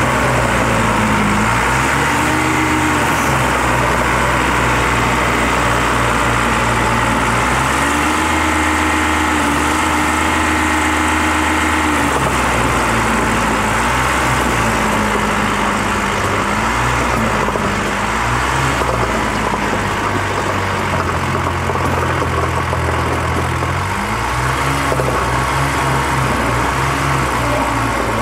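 Old Gradall crawler excavator's engine running as the machine tracks away, its pitch swelling up and dipping back several times over the steady noise of the moving tracks. It grows slightly fainter in the second half.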